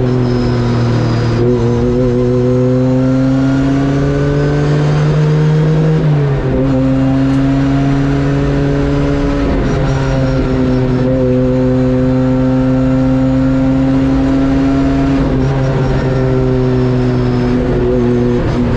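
Ford Escort RS Cosworth's turbocharged four-cylinder engine pulling hard under acceleration, its pitch climbing steadily. It drops sharply at gear changes about 6 and 10 seconds in and again near the end.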